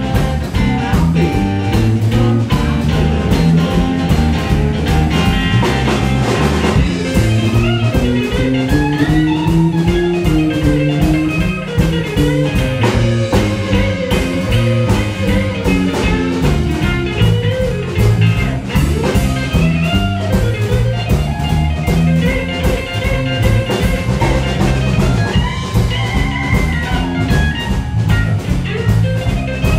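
A three-piece rock band playing live: electric guitar, bass guitar and drum kit in an instrumental passage with no singing, over a steady drum beat.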